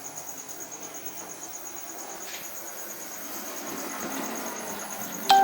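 Model locomotive running on its track, a steady motor-and-wheel rumble that grows louder about four seconds in, under a faint high pulsing chirp. Near the end a loud, steady pitched tone starts abruptly.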